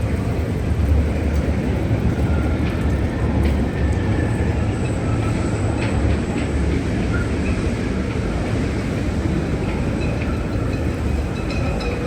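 Gale-force wind buffeting the microphone: a continuous, heavy low rumble with a steady rushing noise over it.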